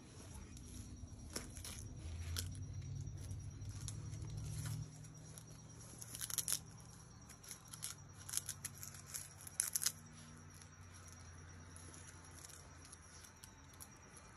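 Faint scattered clicks and scuffs from two Newfoundland puppies play-biting and scrabbling on concrete, sharpest in two clusters around the middle, over a low rumble in the first few seconds.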